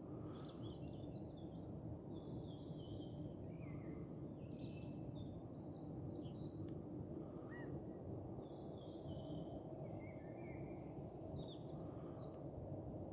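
Songbirds singing in short, varied chirping phrases over a steady low background of outdoor noise.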